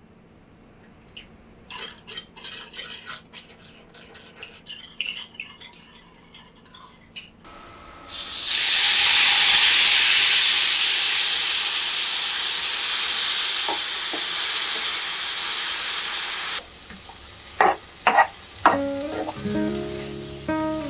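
Sliced sweet potato and lotus root frying in a nonstick pan, with a scatter of clicks and taps as the pieces are moved. About seven seconds in, a soy sauce and mirin seasoning is poured into the hot pan and sizzles loudly, fading slowly before it stops suddenly. A few knocks follow near the end, and music starts just before the end.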